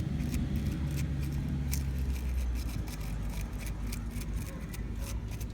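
A brush scrubbing corrosion off a car battery and its terminal, in quick, irregular scratchy strokes, over a steady low rumble.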